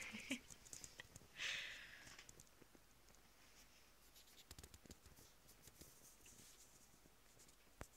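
Near silence: quiet room tone with two brief soft rustles in the first two seconds and faint scattered ticks later on.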